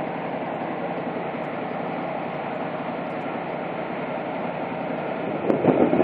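ZIL-131 aerial ladder fire truck's V8 engine running steadily with an even hum, driving the ladder's hydraulics while the ladder is raised. Near the end, wind buffets the microphone in louder gusts.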